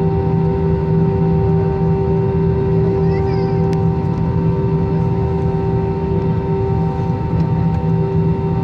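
Airbus A320 cabin drone: a steady engine hum with several held tones over a low rumble. A brief chirp sounds about three seconds in.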